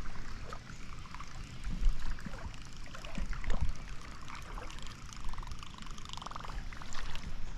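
Creek water sloshing and trickling, with scattered low bumps and knocks from movement through the water.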